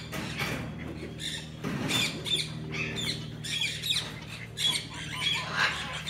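Umbrella cockatoo giving short, harsh squawks, several a second, the angry calls of a cockatoo defending its cage. A steady low hum runs beneath them.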